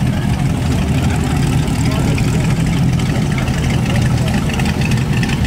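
Engine of a lifted 1950s Chevrolet pickup running at idle as the truck creeps past, a steady low rumble, with crowd chatter around it.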